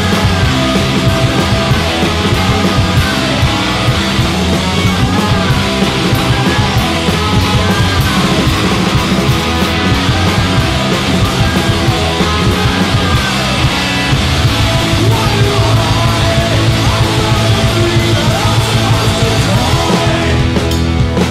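Loud, dense punk rock music played by a band with electric guitars and drums.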